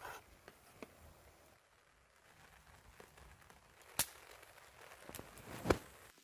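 Scattered sharp clicks and knocks over a faint background hiss, with one crisp click about four seconds in and a louder cluster of knocks near the end.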